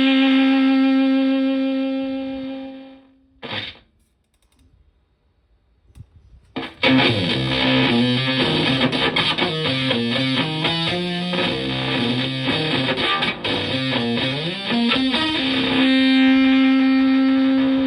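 Electric guitar, a Stratocaster through a germanium Fuzzrite-style fuzz pedal into a Twin Reverb-style amp, playing heavily fuzzed. A long held note fades out, a short stab follows, then after a brief silence a fast riff of changing notes ends on another long sustained note.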